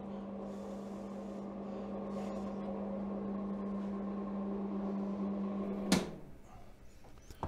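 Arc welding machine humming steadily while idling with no arc struck, cut off by a sharp click about six seconds in.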